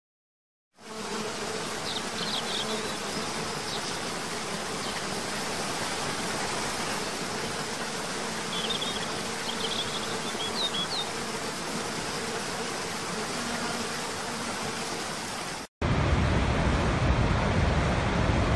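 Steady rushing noise of a waterfall, with a faint steady hum under it and a few short high chirps, once about a second and a half in and again around the middle. Near the end it cuts abruptly to a louder, deeper rush.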